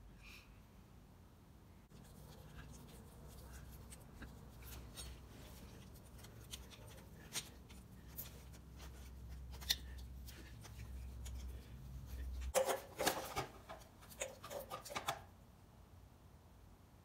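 Hand and tool handling noises while the drain plug is refitted under a motorcycle engine: scattered light clicks and taps. About twelve and a half seconds in comes a louder run of clattering that lasts a couple of seconds.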